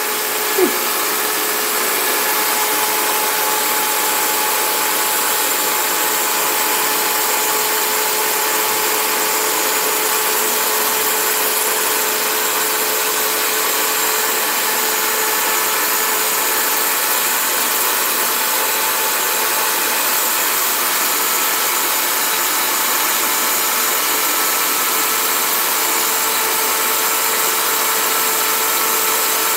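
Cuisinart electric hand mixer running steadily at high speed, its beaters whipping egg yolks and sugar in a glass bowl: an even motor whine over a constant whir.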